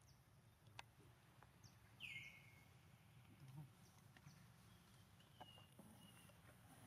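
Near silence with faint outdoor ambience. About two seconds in there is a short high-pitched animal call falling in pitch, and a fainter high call follows later.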